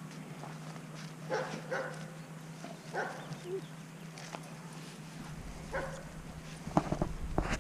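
A dog making several short yelping barks: a pair about a second and a half in, one near three seconds, and a quick cluster near the end.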